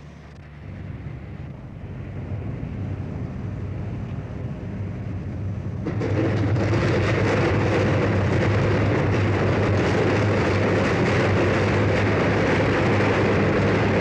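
Electric arc furnace arcing on its charge: a steady low hum under a dense, crackling noise that builds from about half a second in, jumps much louder about six seconds in, then holds steady.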